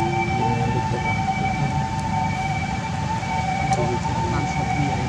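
Steady, high-pitched drone of insects holding two close notes without a break, over a low rumble.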